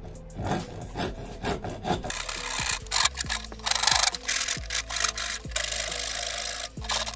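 Flat hand file rasping back and forth inside a slot in a wooden board, in repeated scraping strokes that get louder about two seconds in.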